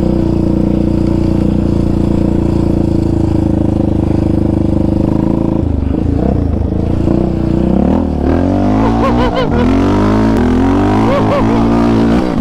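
Yamaha Raptor 700 quad's single-cylinder four-stroke engine running at a steady speed for about six seconds, then revving up and down in repeated swells as the throttle is worked.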